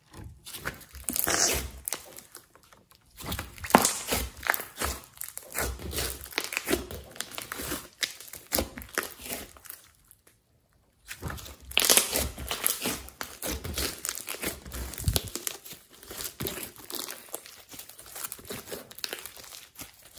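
Pink slime with clay and glitter mixed in being squeezed, stretched and folded by hand, giving dense, irregular crackling and clicky squishes. A short break about halfway through.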